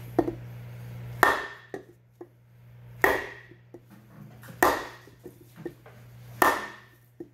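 A hammer striking a wooden block four times, evenly spaced, each blow ending in a short metallic ring, to drive the impeller of a Flygt 3152 submersible pump down onto its shaft.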